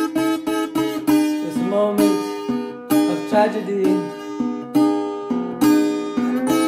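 Acoustic guitar strummed in repeated chords, a few strokes a second, in a rough improvised instrumental passage.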